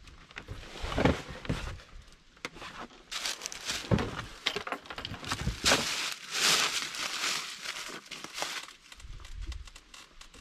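Dry fallen leaves crunching and rustling underfoot as a deer carcass is dragged and heaved up onto an ATV's front rack, with scraping and a few dull knocks.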